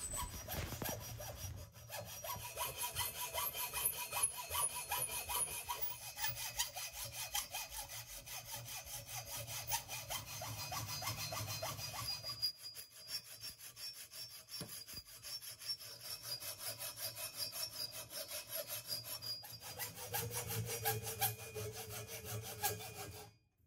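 Hacksaw with an 18 TPI Sandflex blade cutting by hand through the thick cast aluminium between two cylinders of a Kawasaki Z1 cylinder head, in steady back-and-forth strokes. The sound of the sawing changes abruptly several times.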